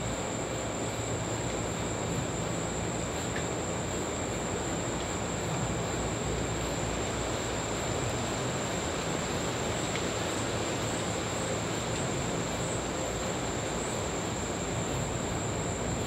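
Steady night ambience: a constant rush of surf with a thin, unbroken high insect trill from crickets over it.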